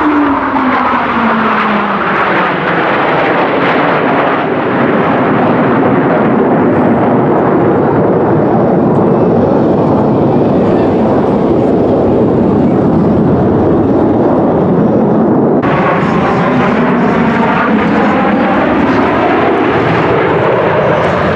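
Jet aircraft flying past, a loud continuous rush of engine noise. At the start a tone glides down in pitch as one passes. Later the noise swells again with a sweeping, whooshing quality as more passes follow.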